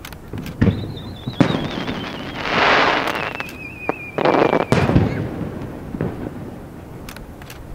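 Aerial fireworks bursting: several sharp bangs, a loud hissing rush in the middle, and a thin wavering whistle that slowly drops in pitch, fading out after the last bangs.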